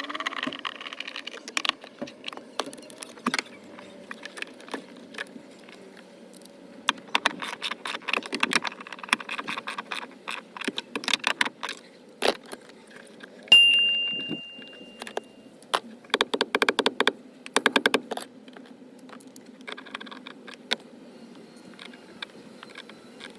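Metal hand tools clicking and clinking during car battery replacement work, with runs of rapid clicks and one clear metallic ring about thirteen seconds in that fades over about two seconds.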